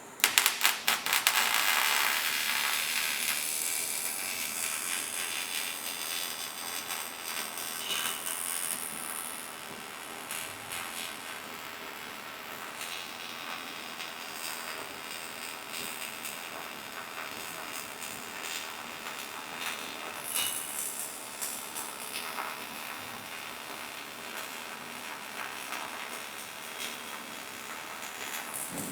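Welding arc of a robotic welder crackling and sizzling, loudest as the arc strikes and settles in the first couple of seconds, then a steady crackle for the rest.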